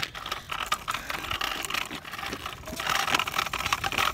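Kick scooter rolling over pavement: wheels running with a rattling stream of clicks and knocks.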